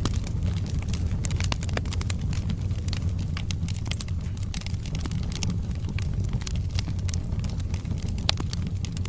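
Wood fire burning in a fireplace: a steady low rumble of the flames with frequent, irregular sharp crackles and pops from the burning logs.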